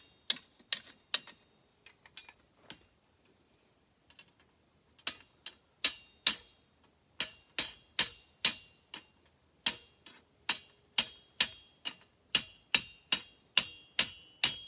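Hammer striking steel sword fittings in repeated sharp, ringing blows. A few come at the start, then a steady run of about two to three strikes a second from about five seconds in.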